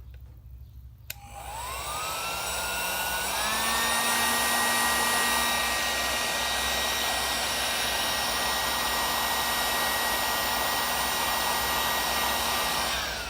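Electric heat gun switched on with a click about a second in. Its fan whine rises to speed, steps up higher a couple of seconds later, runs steadily with a rushing hiss of air, and falls away near the end as it is switched off. It is shrinking heat-shrink tubing over a wire join.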